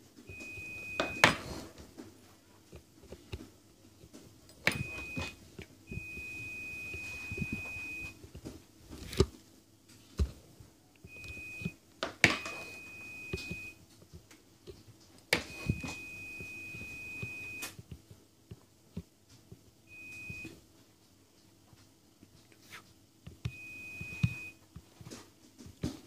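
Hand soldering a fine-pitch connector with a plain soldering iron: sharp clicks and light scratching as the iron tip and solder wire work along the pins. An electronic beep tone sounds on and off through it, about eight times, each lasting from half a second to two seconds.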